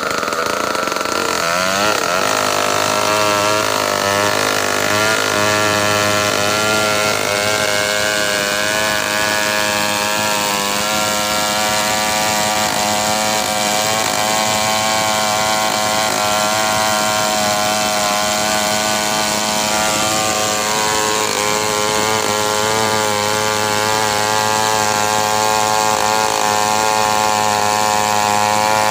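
Stihl 070 two-stroke chainsaw running at full throttle, ripping lengthwise along a log. Its engine note wavers for the first few seconds, then holds steady under load through the long cut.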